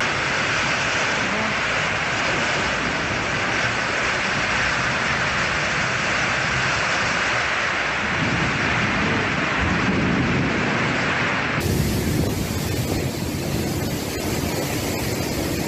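Heavy rain and storm wind in a violent thunderstorm, a loud steady hiss of downpour. About two-thirds of the way through it switches abruptly to a fuller, deeper rush of gusting wind and rain lashing trees.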